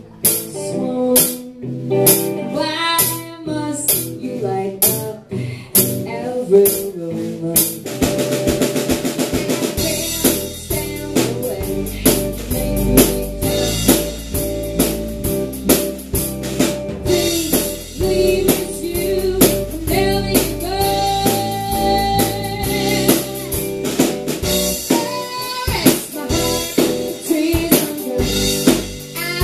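Live rock band: drum kit and electric guitar with a woman singing. It starts sparse, with drum hits under the voice, and about ten seconds in the full band comes in with a heavy low end.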